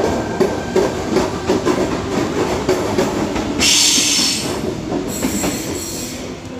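Sydney Trains Tangara double-deck electric train rolling out past the platform, its wheels clicking in a steady rhythm over the rail joints. About three and a half seconds in, a loud hiss rises for a second or so as the last cars go by, and then the rumble fades.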